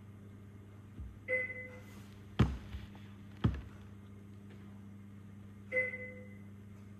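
Steady hum of NICU incubator equipment, with a monitor's electronic chime sounding twice, about four and a half seconds apart. Between the chimes come two sharp knocks about a second apart, the loudest sounds.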